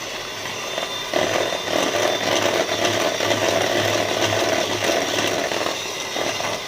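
Electric hand mixer (egg beater) running at a steady speed, beating egg yolks with powdered sugar in a bowl; it gets louder about a second in.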